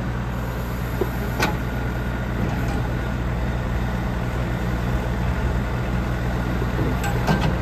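JCB 214 backhoe loader's four-cylinder turbo diesel engine idling steadily, with one brief click about a second and a half in.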